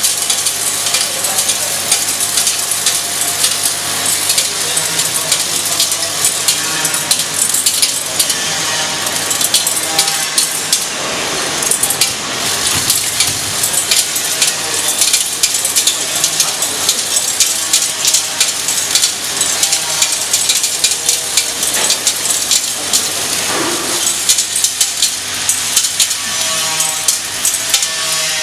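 Fastener packaging machine running with vibratory bowl feeders: a dense, continuous rattle and clinking of small metal screws, nuts and washers as they are shaken along the feeders and dropped into the bags.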